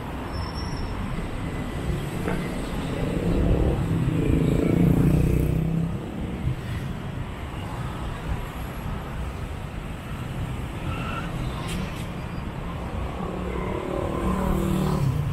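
City street traffic: motor vehicles running past close by, with one louder pass about three to six seconds in and another near the end.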